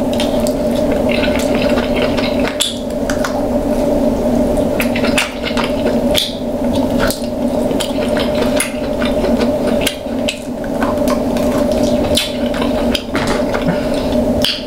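Close-miked eating of king crab claws in butter sauce: wet squishing and smacking, with frequent short clicks and cracks as the shells are worked open. A steady low hum runs underneath.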